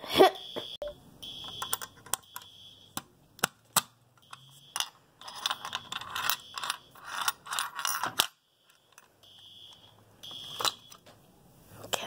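Fire alarm sounding a high tone in on-off blasts, over sharp metallic clicks and rattles as a key is turned in a Simplex fire alarm pull station and its cover is opened to reset it.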